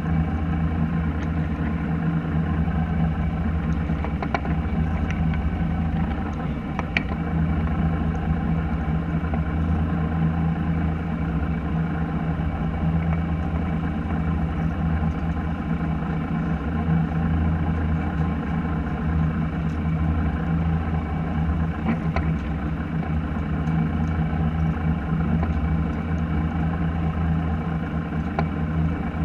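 A fishing boat's engine running steadily with an even low hum, with a few faint clicks and knocks on deck over it.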